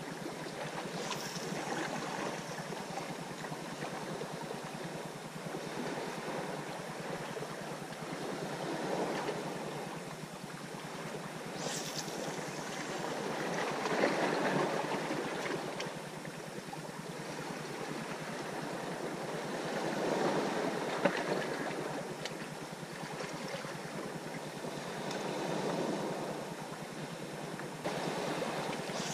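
Sea washing and surging against shoreline rocks, a swell building and easing every five or six seconds.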